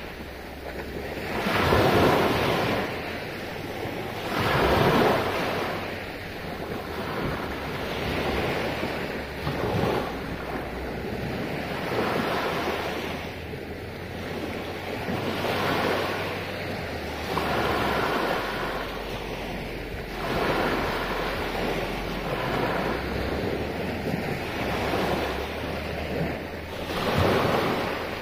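Small sea waves breaking and washing up a beach, the surf swelling and fading every few seconds, with a low wind rumble on the microphone underneath.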